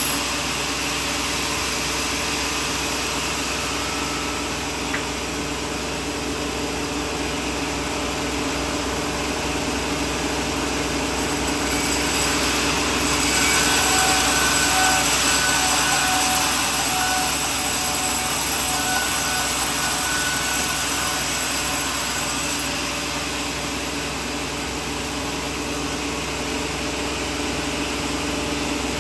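Sawmill running steadily and sawing coconut wood. The noise grows louder about twelve seconds in and eases again near the twenty-three-second mark.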